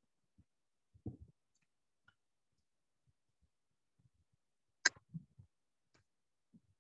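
Computer mouse clicking a few times against a quiet room: a soft knock about a second in, one sharp click about five seconds in followed by a couple of faint low knocks, and another small knock near the end.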